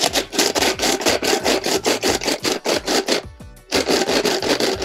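Korda bait crusher twisted back and forth by hand, grinding Robin Red pellets into fine crumb: a fast run of gritty scraping strokes, about six a second, with a short pause a little past three seconds in.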